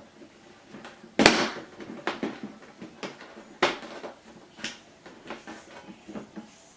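Hard plastic knocks and clacks from handling a plastic cable management box and a phone: one sharp knock a little over a second in, then three lighter knocks spread over the next few seconds.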